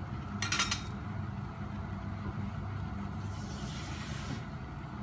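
Steady low motor hum, with a brief sharp noise about half a second in and a short hiss about three and a half seconds in.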